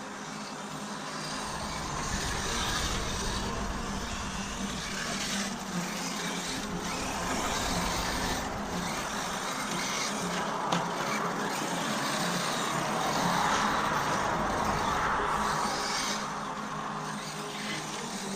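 Brushless electric RC car running on a dirt track, its motor and drivetrain whining and its tyres hissing on the ground, louder for a few seconds in the second half as it comes closer.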